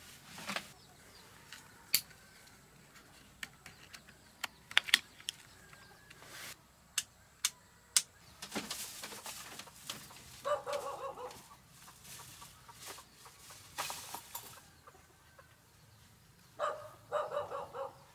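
Chickens clucking in two short bouts, about ten seconds in and again near the end. Sharp clicks and knocks are scattered through the first half and are the loudest sounds.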